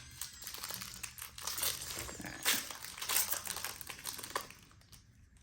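Foil wrapper of a Pokémon card booster pack crinkling and tearing as it is opened, in irregular crackles that are loudest around the middle and die away near the end.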